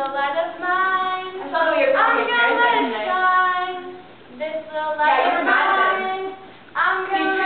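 A small group of girls singing together without accompaniment, in sustained phrases separated by short breaths.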